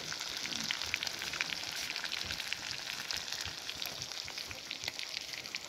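Small snowtrout (asala fish) deep-frying in hot oil in a kadai: a steady sizzle thick with fine crackling pops.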